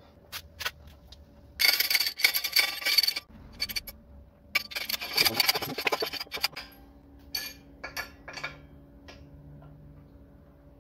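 Metal clinks and scraping from a hydraulic shop press pressing a ball bearing onto a washing machine motor's rotor shaft, driven by a socket on the bearing's inner ring. There are two longer bouts of harsh rasping and clattering, then scattered single clicks.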